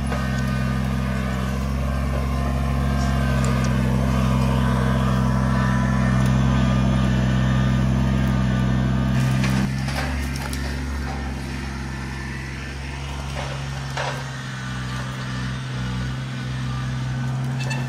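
Kubota BX23S compact tractor's three-cylinder diesel engine running steadily. About ten seconds in it drops quieter and runs on at a lower level.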